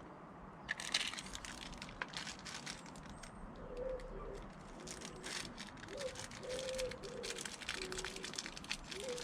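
Irregular bursts of crackling and rustling, with a pigeon cooing softly in the background in short low phrases.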